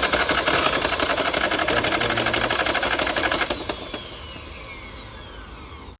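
Mitsubishi 4M40 four-cylinder diesel engine running with a fast, rough clatter; about three and a half seconds in it drops away and a whine falls steadily in pitch as it winds down. The seller calls it a no-good engine with a problem.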